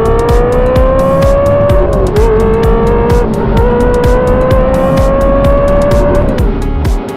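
Ferrari 360's flat-plane-crank V8 pulling hard under acceleration, its pitch climbing steadily with brief dips about two and three seconds in, then falling away near the end as the revs drop. Music with a steady beat plays under it.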